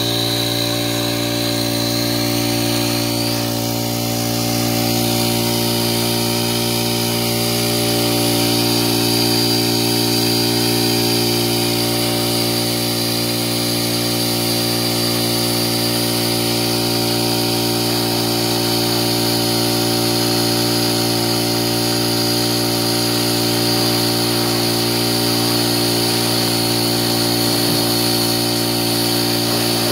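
Small portable engine-driven water pump running at a steady speed feeding a garden hose: an unchanging drone with a steady high whine over it.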